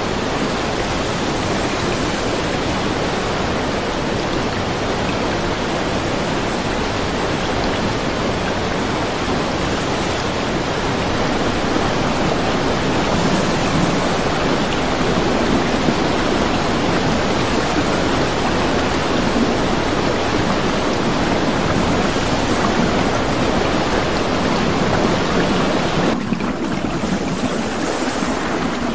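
Torrent of floodwater rushing, a steady loud wash of water noise. Near the end it changes to a softer, duller wash.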